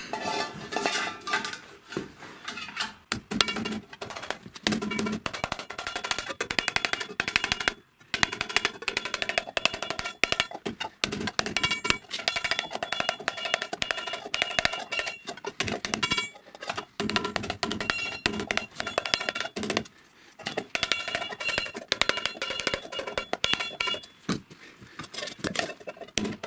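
Rapid hammer blows on a galvanized-steel pipe cap held over a round steel mandrel, metal ringing at each strike. The blows come in runs of a few seconds with brief pauses, as the rolled-over flange is planished smooth.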